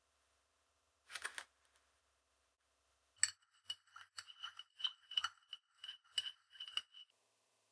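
Metal electrode rods clinking against a glass plating jar as they are moved by hand: a short scrape about a second in, then about a dozen light, ringing glass clinks over four seconds.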